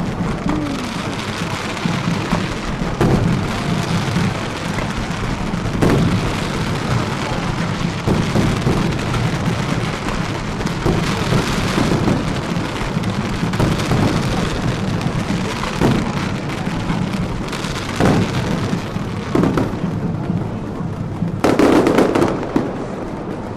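Fireworks going off: a steady crackling haze with repeated sharp bangs every second or two, the loudest burst near the end.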